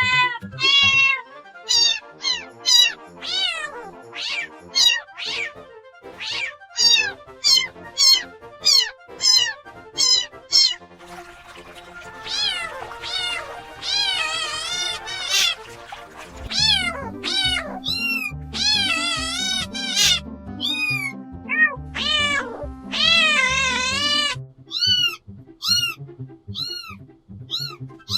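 Kittens meowing over and over, short high-pitched mews about once a second at first, then longer, overlapping calls in the middle; background music with a low beat joins under them for several seconds past the middle.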